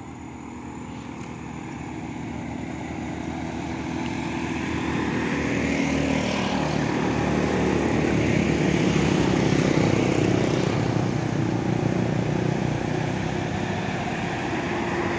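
Steady engine drone growing louder over about the first eight seconds, then holding near its loudest, with a slowly sweeping whoosh.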